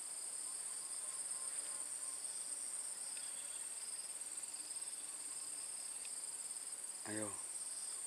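A steady, high-pitched chorus of insects makes a continuous drone, over a fainter band that pulses gently. A brief voice sounds near the end.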